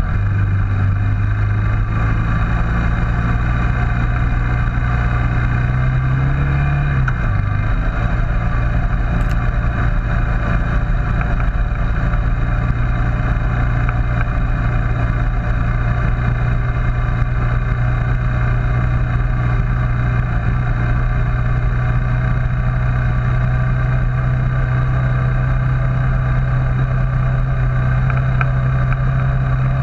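Suzuki King Quad 400FS ATV's single-cylinder engine running steadily while riding along a gravel trail. The engine note rises briefly about six seconds in and drops back, then holds steady and climbs slightly near the end.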